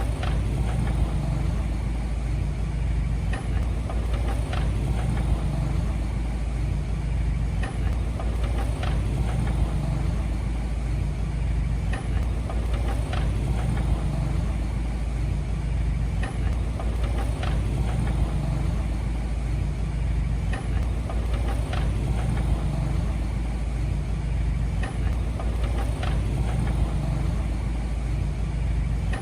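Diesel engine of heavy earthmoving machinery, an excavator or bulldozer, running steadily at an even speed. Faint sharp ticks recur about every four seconds.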